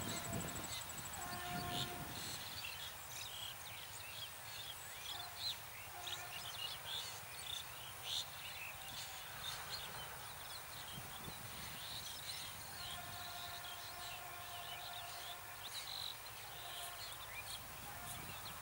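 Rural outdoor ambience: small birds chirping in many short calls throughout, over a faint low rumble. A distant steady drone fades in and out a few times.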